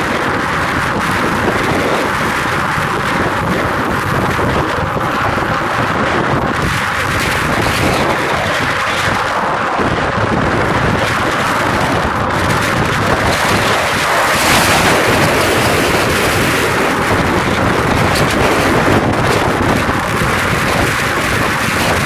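Strong wind buffeting the microphone: a loud, steady rumble and hiss, a little louder from about the middle on.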